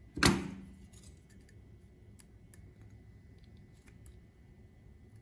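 Heavy rusty metal shears give one sharp metallic clank with a short ringing tail about a quarter second in, then a few faint light clicks as they are handled.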